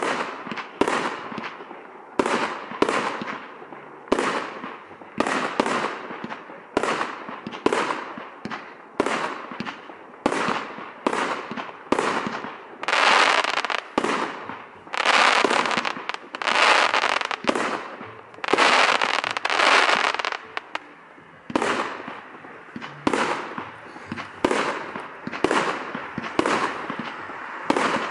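Aerial fireworks firing in quick succession: a sharp shot or burst about every half second to second, each fading quickly, with longer, louder stretches of noise about halfway through.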